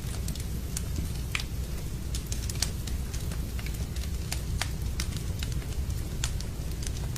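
Wood fire burning in a fireplace, crackling with sharp, irregular pops over a steady low rumble.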